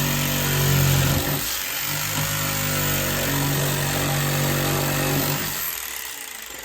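Electric jigsaw running as it saws, a steady motor hum with a rasping hiss that dips briefly about a second and a half in. About five and a half seconds in the motor stops and the noise fades away.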